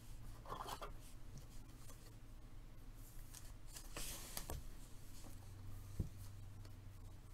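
Faint rustling of a 2020-21 Prizm basketball card pack and its cards being handled, with a stronger rustle about four seconds in and a few small clicks, over a low steady hum.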